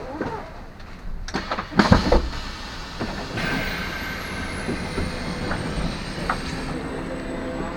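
Train braking as it pulls in, with a couple of heavy clunks about two seconds in, then a thin, very high brake squeal that falls in pitch and then holds steady.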